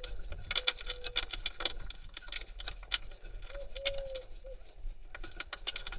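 Small irregular metallic clicks and ticks of a 10 mm bolt being threaded in by hand, fingers working the metal part. Two faint short low tones sound once about half a second in and again around the middle.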